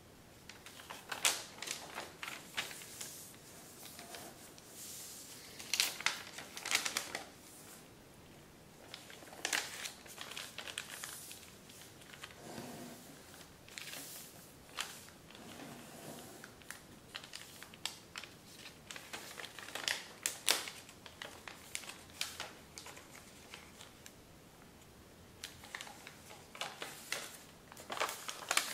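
Large sheet of kami origami paper being folded by hand: irregular rustling and crinkling as it is shifted, with short sharp crackles as creases are pressed flat.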